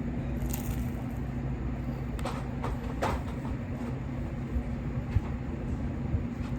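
A steady low mechanical hum, with a few faint short crackles and taps over it.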